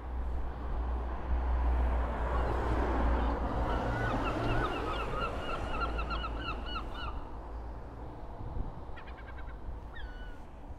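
Crows calling: a quick run of short, repeated calls a few seconds in and another call near the end. Under them runs a steady low traffic rumble that swells as a vehicle passes.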